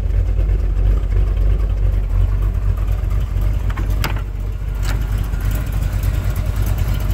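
1969 Corvette's 350 small-block V8 idling steadily with a low, even rumble. Two brief clicks come about four and five seconds in.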